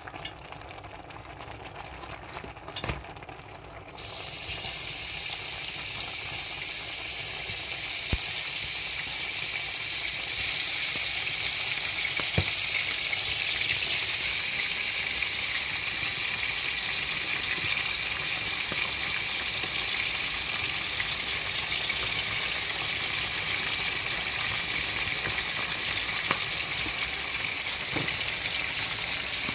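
Ground beef starts frying in hot oil about four seconds in: a sudden, steady sizzle that keeps going, with a few light knocks over it.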